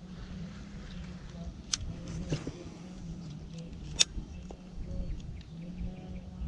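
Baitcasting reel being handled during a lure retrieve: two sharp clicks about two seconds apart, the second louder, over a steady low rumble.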